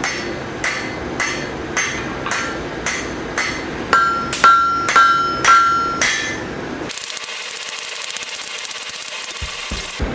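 Hand hammer striking steel on an anvil at an even pace of about two blows a second, some blows ringing out clearly. About seven seconds in the hammering stops and a steady high hiss takes over.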